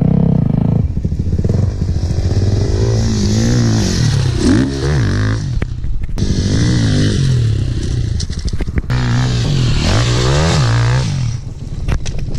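Dirt bike engine under hard throttle on loose ground, revving up and easing off several times in quick succession as the rider works through the throttle and gears. A few short knocks and clatters are mixed in.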